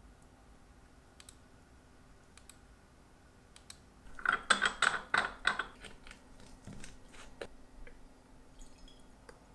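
A quick cluster of sharp clicks and small clatters from hands handling watchmaking tools and glass bottles on the bench, loudest for about two seconds near the middle, followed by a few lighter clicks.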